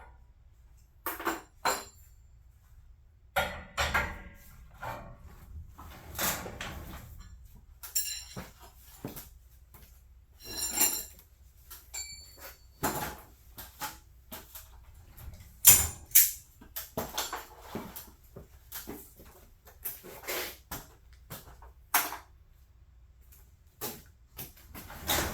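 Irregular metallic clanks and knocks, as of metal tools and hardware being handled and set down, a few ringing briefly.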